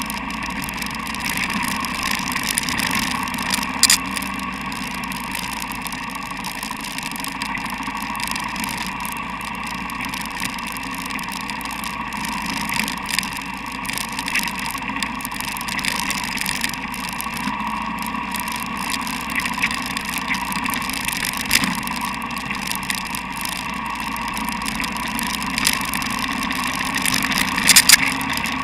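Dual-sport motorcycle engine running steadily at trail speed on a dirt track, with scattered sharp clicks and knocks from the rough ground.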